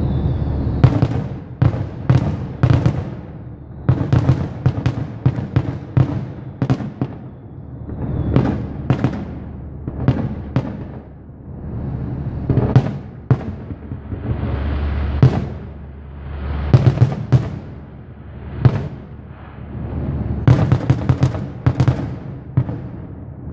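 Aerial fireworks bursting: repeated sharp bangs and crackles with rolling, echoing rumbles between them, thickest in a rapid run of crackles near the end.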